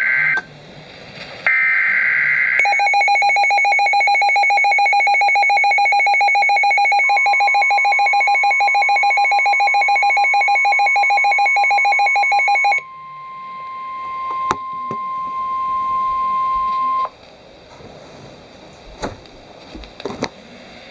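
NOAA Weather Radio alert signals. First come two short screechy two-tone bursts of SAME digital header data. Then a weather radio's rapid pulsing alarm beeps for about ten seconds. The steady 1050 Hz warning alarm tone, which marks a warning-level alert, starts partway through, holds for about ten seconds and cuts off, leaving a low hiss with a few sharp clicks.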